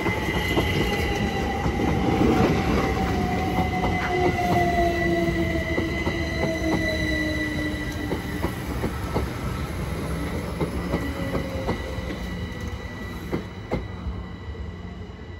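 Class 387 electric multiple unit pulling into the platform and slowing to a stop, its traction motors whining down in pitch. A high steady squeal and scattered clicks from the wheels run underneath, and the sound fades near the end.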